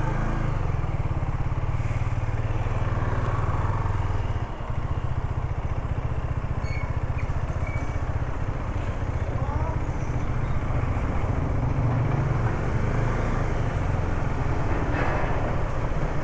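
KTM Duke 250's single-cylinder engine running at low speed, a steady low pulsing drone heard from the rider's position, easing off briefly about four seconds in.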